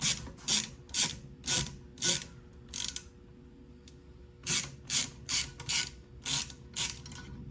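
Ratchet clicking in repeated strokes, about two a second, adjusting a valve spring compressor on a Gen 6 454 cylinder head to get a valve spring in. The clicking stops for about a second and a half around three seconds in, then starts again.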